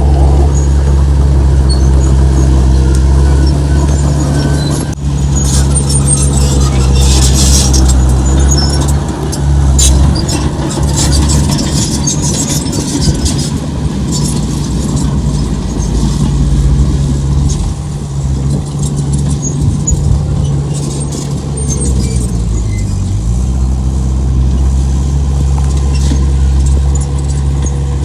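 Heavy diesel engine of an earthmoving machine running steadily and loud, with high metallic squeaks and clanks mostly from about six to thirteen seconds in, and a brief drop in engine pitch about three-quarters of the way through.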